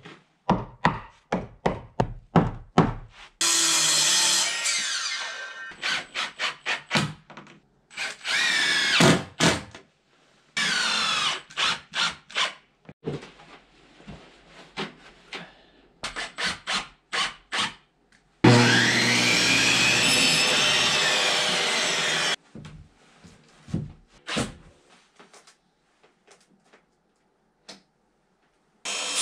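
Power tools on rough-cut wood siding, taking turns: a cordless drill driving screws and a circular saw cutting boards, in runs of a few seconds whose pitch bends under load. Between them come quick runs of sharp knocks on the wood. The longest saw run lasts about four seconds, a little past the middle.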